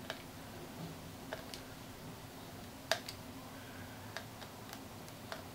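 Scattered light clicks and ticks, about one a second, the loudest about three seconds in, as a small screw is driven back into the plastic battery-compartment cover of a compact digital multimeter.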